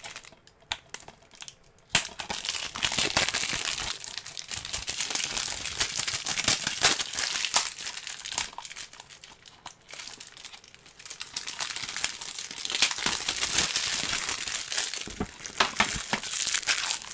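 Plastic shrink-wrap being torn and crumpled off a DVD case: continuous crinkling and crackling full of sharp ticks. It is sparse for about the first two seconds, then steady.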